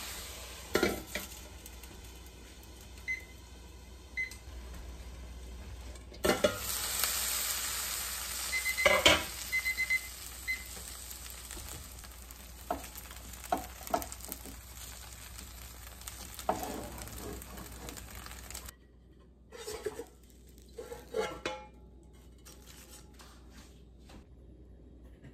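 Gyoza sizzling in a nonstick frying pan as the steaming water cooks off and the dumplings crisp in the oil. Now and then there are knocks of a utensil against the pan and a few short beeps. The sizzle cuts off suddenly about three-quarters of the way through, and a few more knocks and clatters follow.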